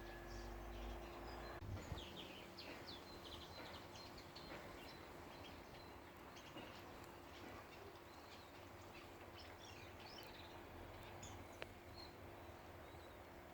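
Faint outdoor ambience with scattered bird chirps over a steady low hum, and a single sharp click near the end.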